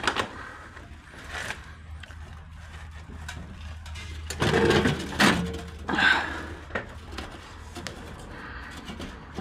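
Knocks, scrapes and clatter of objects being handled, with a louder burst of clatter about halfway through.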